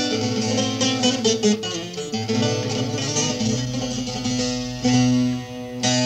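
Solo bağlama, the Turkish long-necked lute, plucked in a folk melody over steady low ringing notes, with a quick run of notes about a second in.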